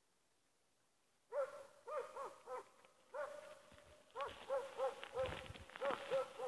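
Jämthund (Swedish elkhound) bay-barking at a moose: a run of short barks, two or three a second in uneven bunches, starting about a second in. Each bark rises and falls in pitch. Low thumps come in under the barks in the second half.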